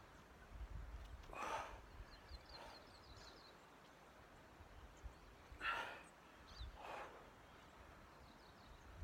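Three faint, breathy exhalations a few seconds apart, with a brief run of faint high chirps between the first two.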